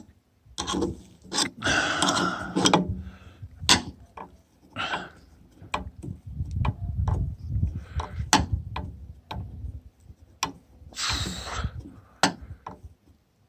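Screwdriver prying and scraping at a stiff roof-bar fixing, with repeated sharp clicks and knocks and a few longer rasping scrapes.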